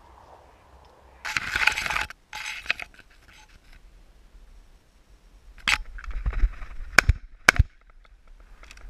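Camouflage netting rustling loudly against the microphone in two stretches, then a sharp click and two short knocks about half a second apart as the shotgun is handled in the blind.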